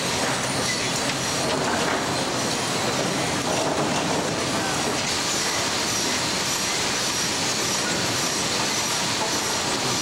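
Sawmill machinery running: a steady loud industrial din of chain conveyors and transfer decks moving boards, with faint high-pitched squeals coming and going.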